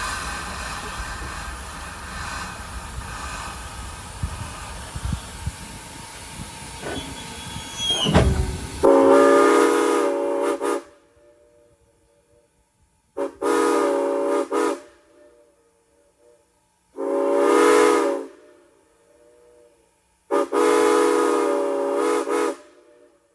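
Former Norfolk and Western 4-8-0 steam locomotive No. 475 running with a rumble and hiss, then sounding its chime whistle in four separate blasts, the third the shortest. Faint whistle tones linger between the blasts.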